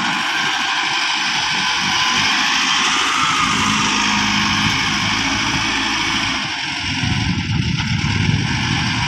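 Wheel loader's diesel engine running as the machine maneuvers, growing louder near the end as it drives back toward the truck.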